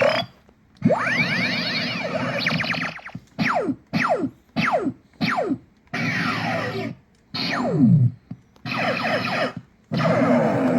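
Circuit-bent toy laser sword playing its electronic laser sound effects: bursts of glitchy, gliding tones. About a third of the way in there is a quick run of four short falling zaps, and longer falling sweeps come later.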